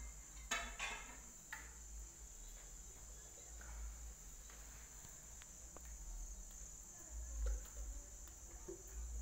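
A steady high-pitched trill or whine runs throughout. Over it come a few light clicks and knocks in the first second and a half as a clear plastic jar is handled over a tiled floor.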